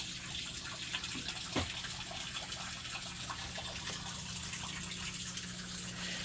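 Steady rushing background noise like running water, under a low steady hum, with a few faint clicks.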